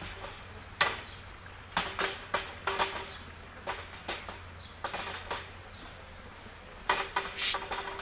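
Wire-mesh cage trap clanking and rattling in irregular sharp knocks as its door is lifted open, with a cluster of louder knocks near the end.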